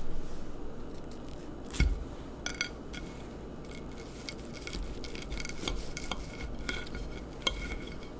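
Cutlery clicking and scraping against a dish while cutting into a bacon-wrapped pigeon breast, with a sharper clink about two seconds in.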